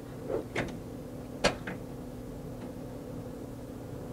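Plastic clicks and knocks as the temporary printheads are worked loose and pulled out of an HP Latex 110 printer: four short sharp sounds in the first two seconds, the loudest about a second and a half in, over a steady low hum.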